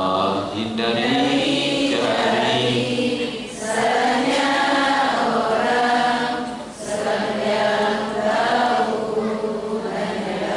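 A group of voices chanting a religious song together in unison, in sustained sung phrases of a few seconds with short breaks between them.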